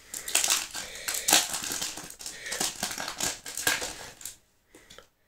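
Foil wrapper of a Yu-Gi-Oh booster pack crinkling and rustling in the hands with many quick crackles as the pack is opened; the crackling stops about four seconds in.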